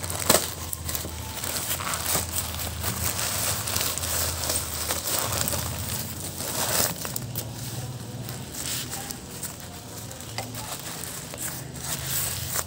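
Plastic packaging crinkling and crackling in irregular bursts as hands handle and open a plastic courier pouch and the bubble wrap inside it.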